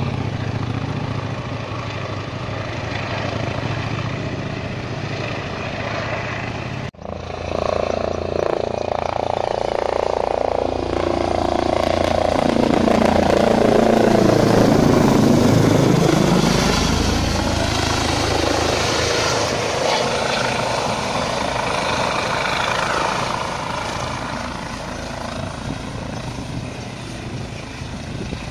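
Eurocopter EC135 air-ambulance helicopter flying in to land. Rotor and turbine noise builds to its loudest around the middle as it passes low overhead, with a falling sweep in pitch, then eases as it comes down to land. There is a brief break just before a quarter of the way in.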